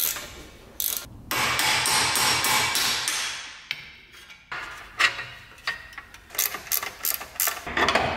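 Metal hand-tool work on a car's front suspension: about two seconds of rasping tool noise, then a sharp metallic strike about five seconds in and a quick run of lighter knocks, as a forked ball joint separator is driven in to free the lower control arm's ball joint.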